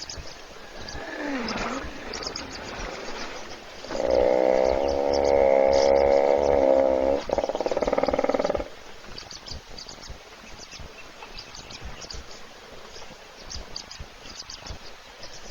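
A loud, drawn-out animal call lasting about four and a half seconds, steady in pitch with a rich buzzy tone, with a slight break near its end. A fainter gliding call, falling then rising, comes a couple of seconds before it.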